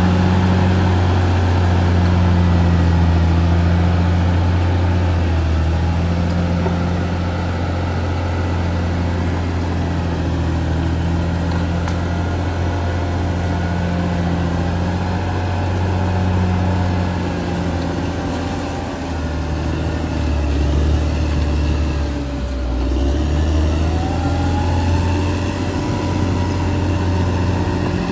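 Caterpillar D6R XL bulldozer's diesel engine running steadily while the dozer works. Its low engine note dips and shifts about two-thirds of the way through, then settles again, with faint higher whining tones over it.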